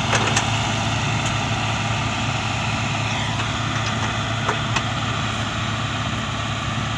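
Engine of a rice harvesting machine running steadily with a low hum and mechanical clatter, with a few sharp clicks here and there.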